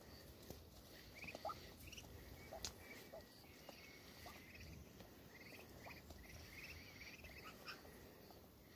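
Faint, scattered peeping of ducklings: short high chirps, often in quick little runs.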